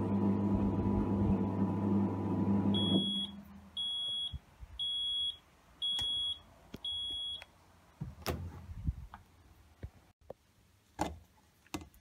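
Fisher & Paykel Pride washing machine spinning with a steady hum that cuts off about three seconds in. Five high end-of-cycle beeps follow, about one a second, signalling the wash has finished. A few knocks come near the end as the lid is lifted.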